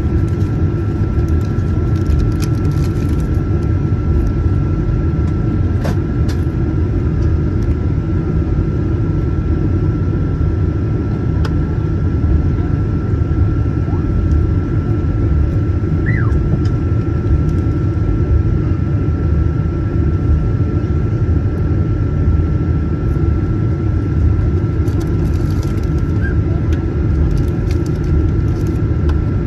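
Steady cabin noise inside a Boeing 737-900ER with its CFM56-7B engines running: a constant low rumble with a thin steady whine over it, not building up.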